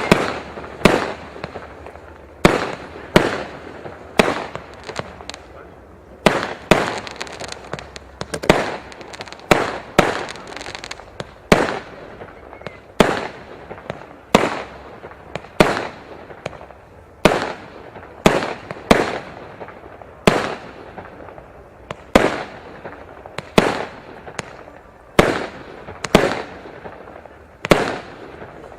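A multi-shot firework battery ('Speed Limit' cake) firing shot after shot: sharp bangs about once a second, often in close pairs, each with a short fading echo.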